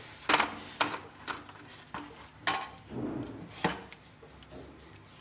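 Steel utensils knocking against iron tawas: about six sharp clinks and clatters in the first four seconds as a slotted spoon is set down and a rolling pin is worked on the griddle. It goes quieter near the end.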